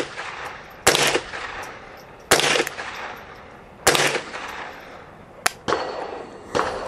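Ruger 10/22 semi-automatic .22 LR rifle firing slow aimed shots from a bench, five shots about a second to a second and a half apart. Each shot is a sharp crack with a short echo after it.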